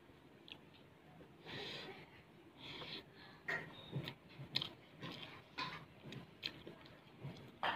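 Close-up eating sounds: chewing and breathing, with a few short wet clicks and smacks, as rice and fried food are eaten by hand from a steel plate.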